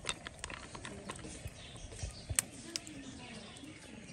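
Scattered sharp metal clicks and taps as the T-handle screw of an aluminium pressure cooker's clamp is turned down onto the lid, an irregular handful with the loudest about two and a half seconds in.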